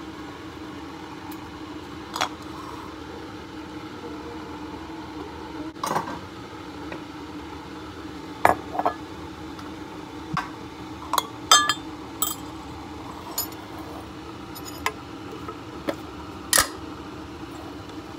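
Stainless steel mesh tea infuser, metal tea tin and a Pyrex glass measuring cup being handled on a stone counter: about a dozen short, scattered clinks and taps of metal and glass. A steady low hum sits underneath.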